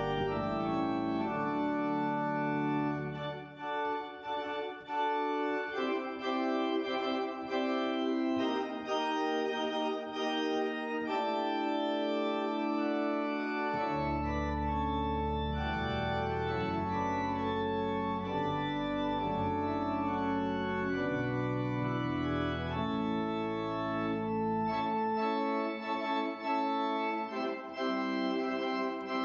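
Organ music: slow sustained chords, with deep bass notes that come in about halfway through and drop out near the end.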